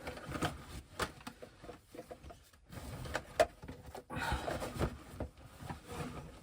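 Gear being handled: irregular rustling with light clicks and knocks, one sharper knock about halfway through.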